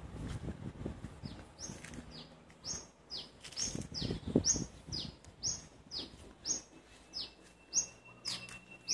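A small bird repeats a short, high chirp that falls in pitch, about two a second, with low thumps and rustling underneath.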